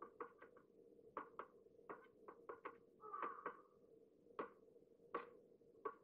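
Crow's beak tapping and pecking at crushed food in a feeding dish: a quick, irregular run of faint taps, with a short scraping rustle about three seconds in, over a steady low hum.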